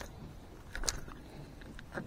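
Faint handling noise from fishing tackle worked by hand: a few small clicks, one cluster just under a second in and another near the end, over a low background hush.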